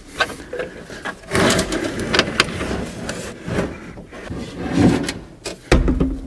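A heater box being dragged out from under a 1966 Mustang's dash, its heater tubes pulled back through the firewall: irregular scraping, rustling and knocking of the housing against the dash and carpet, with a heavy knock near the end.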